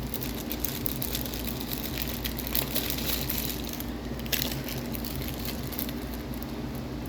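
Rustling and light clicking of small parts being handled, such as a plastic baggie of screws being searched, over a steady low hum.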